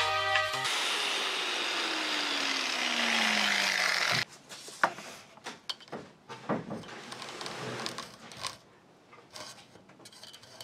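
A torch flame hissing steadily on a brass tube, with a slowly falling tone, that cuts off sharply about four seconds in. Then a hacksaw blade rasps in short, irregular strokes across a brass tube held in a vise, starting the cut.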